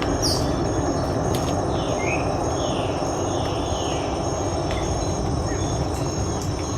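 Tropical forest ambience: a steady rushing noise, a high insect note pulsing about twice a second, and repeated short falling chirps from about two seconds in.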